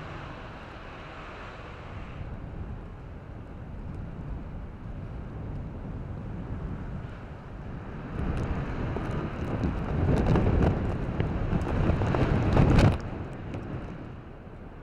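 Wind buffeting the microphone outdoors: a low steady rush at first, building about eight seconds in to heavy rumbling gusts that cut off abruptly a couple of seconds before the end.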